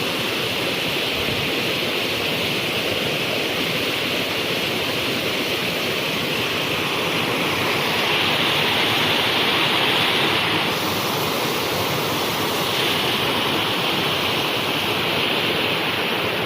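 Waterfall rushing, a loud, steady wash of falling water that swells slightly about halfway through.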